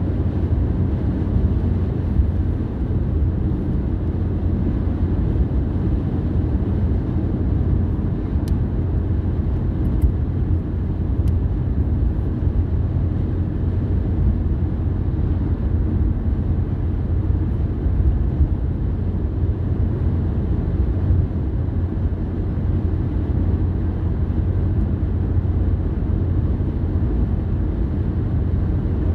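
Steady low rumble of a car driving along at an even pace: engine and tyre noise on the road surface. A few faint clicks come about nine to eleven seconds in.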